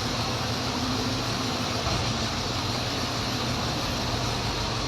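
Construction machine's engine running steadily, a low hum under a constant hiss.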